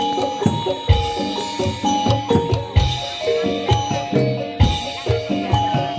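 Javanese reog jaran dor gamelan music: heavy drum strokes about once a second under a repeating melody of pitched metal percussion notes.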